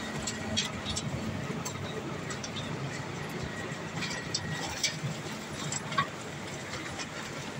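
A Rubble Master RM 80GO tracked impact crusher running steadily with a low hum, with scattered sharp clicks and ticks over it.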